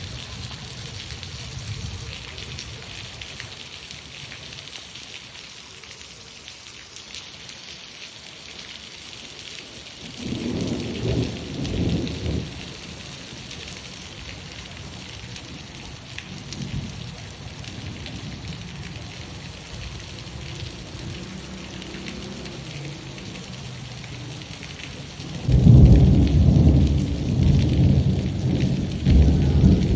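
Steady rain falling in a continuous hiss, with thunder rumbling twice: a shorter rumble about ten seconds in and a louder, longer rolling one near the end.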